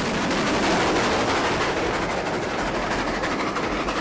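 Steam train running past close by, a loud steady rush with rapid rail clatter.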